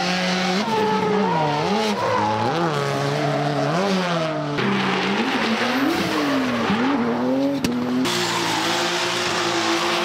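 Drift car engines revving up and down through drifts, with tyre squeal and hiss from the sliding rear tyres. The sound cuts abruptly from one car to another about four and a half and eight seconds in.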